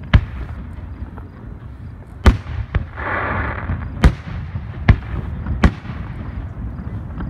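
Aerial firework shells bursting: about six sharp bangs a second or so apart, with a short rush of hissing noise about three seconds in.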